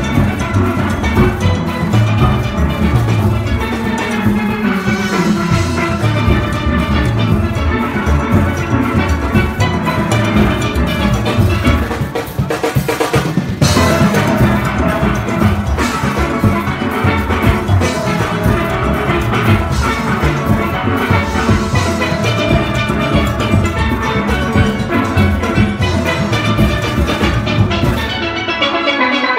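A full steel band playing together, loud and continuous: many steelpans sounding at once, from the deep bass pans made of whole oil drums up to the high chrome tenor pans.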